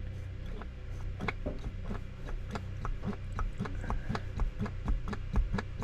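Hand priming pump on a Volvo Penta marine diesel's fuel system being worked, giving a quick, regular clicking of several strokes a second. This is fresh diesel being pumped through newly changed fuel filters to bleed the air out.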